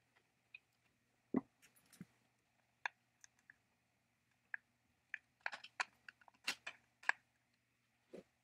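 Faint small metal clicks and taps as a screwdriver turns screws and handles parts in the chainsaw's metal switch handle, with a duller knock about a second in and a quick run of clicks in the second half.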